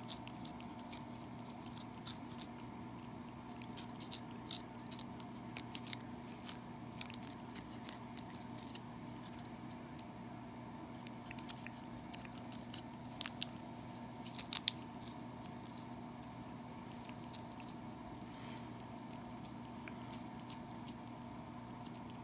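A cat licking a Churu paste treat from a squeeze tube: small wet tongue clicks and smacks at an irregular pace, a few louder ones now and then. A steady low hum runs underneath.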